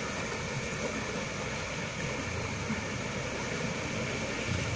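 River water flowing in a steady rushing noise, with a low hum joining near the end.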